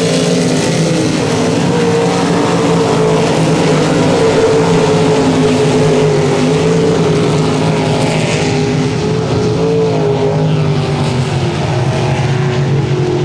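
305 winged sprint cars' V8 engines running at racing speed, a loud, unbroken engine note whose pitch wavers slightly as the cars go around the track.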